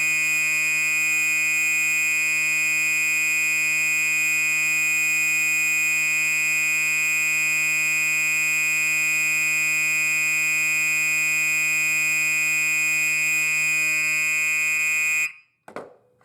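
Gentex SHG-24-15/75WR fire alarm horn sounding in continuous mode: one loud, steady, unbroken horn tone, which cuts off suddenly near the end.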